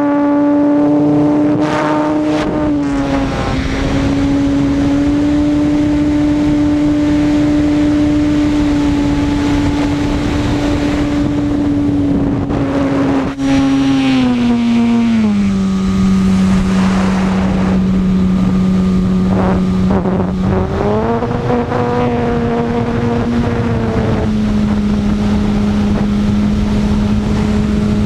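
Brushless electric motor and propeller of an E-flite Apprentice S 15E RC plane whining steadily in flight over wind noise. About halfway through the pitch drops as the throttle is eased back, then it rises a little and settles lower again near the end.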